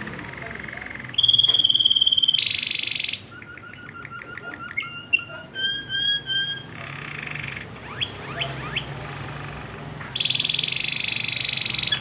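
Waterslager canary singing a varied song of held whistles, fast rolls and runs of rapid repeated notes. The loudest rolling phrases come about a second in and again near the end.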